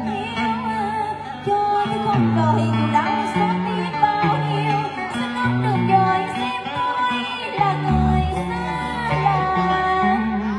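A woman sings Vietnamese cải lương (vọng cổ style) into a microphone with a wavering, ornamented voice, over amplified instrumental accompaniment whose bass notes change underneath.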